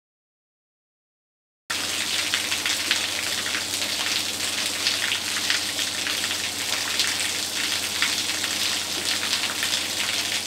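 Heavy rain falling: a steady, dense hiss thick with close drop impacts, starting abruptly about two seconds in after complete silence.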